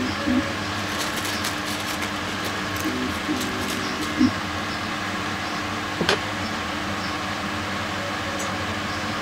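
Steady mechanical hum of a running machine, with a few light clicks and one sharper tap about six seconds in.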